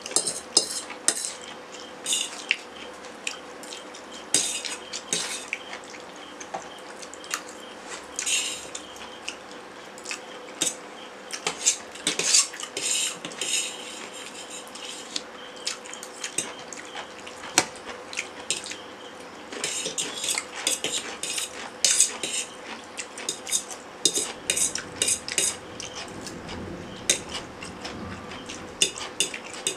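A spoon and a fork scraping and clinking irregularly against stainless steel plates as noodles are scooped up and eaten, over a faint steady hum.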